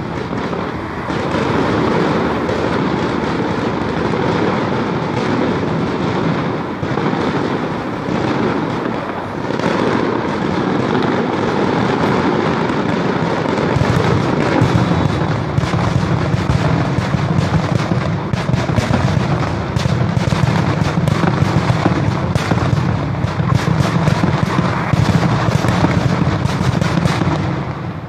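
Firecrackers going off in a dense, continuous crackle of rapid pops, heavier and deeper from about halfway through, dying away near the end.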